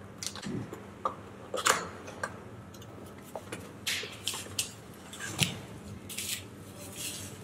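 Cardboard box flaps being opened and the plastic wrapping inside handled: a string of short scrapes and rustles.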